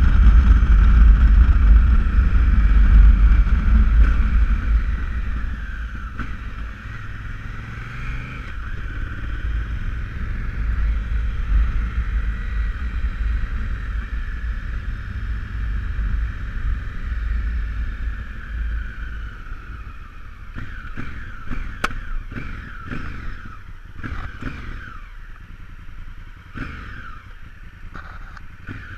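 Honda Africa Twin CRF1000 motorcycle on the move in the rain. Wind rushes over the microphone, heaviest at first and easing as the bike slows, with the parallel-twin engine running underneath. In the last several seconds there is a run of sharp knocks and quick sweeps in pitch.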